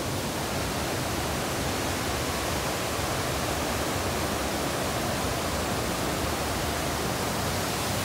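Steady rushing of a waterfall, an even noise with no breaks.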